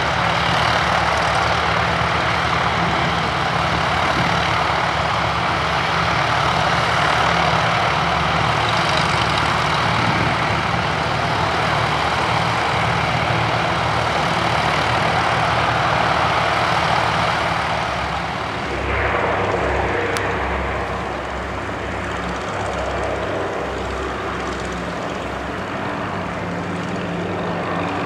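Twin Pratt & Whitney R-1830 radial engines of a Douglas C-47A Skytrain (DC-3) running at takeoff power, propellers and engines making a loud, steady roar through the takeoff run. About two-thirds of the way through it becomes quieter, with a more uneven low rumble, as the plane lifts off and climbs away.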